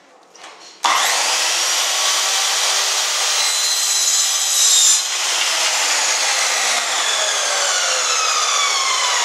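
Electric miter saw started up about a second in and cutting through a wooden board. About halfway through the cut ends and the blade winds down with slowly falling whines, while a steady rushing noise keeps on underneath.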